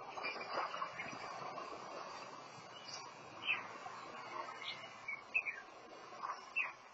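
A three-wheeled motor cargo vehicle crashing into a shopfront: a jump of clattering noise in the first second, then a steady rumbling noise with short, high, squeaky calls scattered through it.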